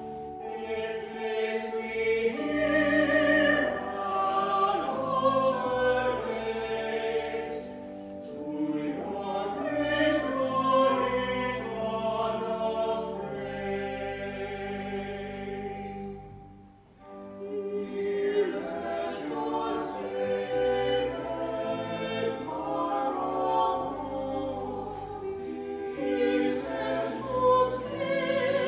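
Choral singing of a church anthem with sustained low accompaniment, pausing briefly about halfway through before going on.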